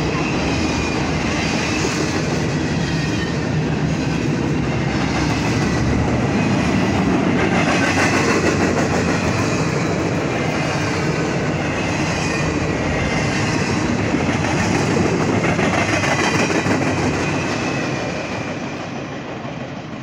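Intermodal freight train cars rolling past close by: steel wheels clattering over the rail joints, steady throughout. The sound fades near the end as the last car passes and recedes.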